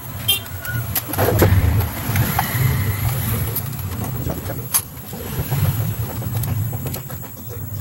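Plastic case of a portable multiband radio being handled and pried open: scattered clicks and scraping of plastic parts, over a low rumbling hum.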